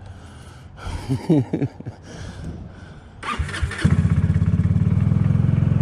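Kymco People 250 scooter's carbureted single-cylinder engine cranked on the starter: a short burst of starter noise past three seconds in, then it catches and settles into a steady, fast-pulsing idle. This is a cold start. The exhaust note carries the joint between a slip-on muffler and the original down pipe, patched with JB Weld HighHeat to seal the leak, and to the owner it sounds no different.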